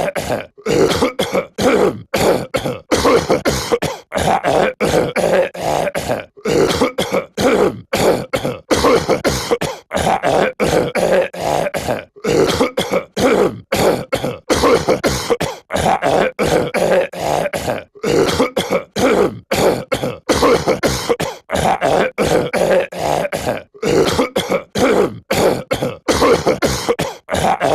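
A cartoon character's voice clip of throat clearing and coughing, looped over and over: short, loud rasping bursts a few times a second with no pause.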